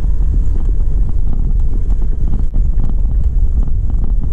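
Wind buffeting the microphone: a loud, steady low rumble that flutters unevenly.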